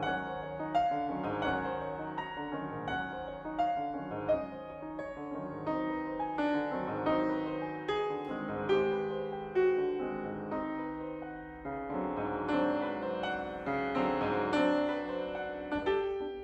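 Grand piano played solo in classical style, a continuous flowing passage of sustained ringing notes that thins briefly about three-quarters of the way through before building again.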